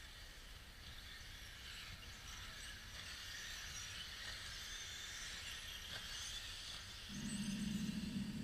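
Radio-controlled model cars running on a track: a faint high whine that rises and falls as they lap. About seven seconds in, a louder low hum comes in.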